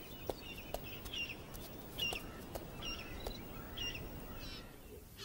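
Faint bird chirps: short, high two-part notes repeated about once a second over quiet outdoor background noise, with a few faint clicks in the first second.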